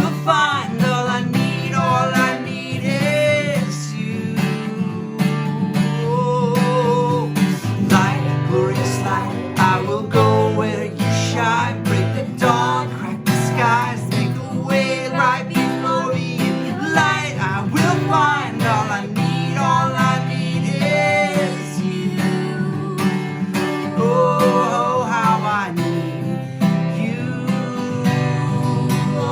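Acoustic guitar strummed steadily, with a voice singing a slow worship melody over it.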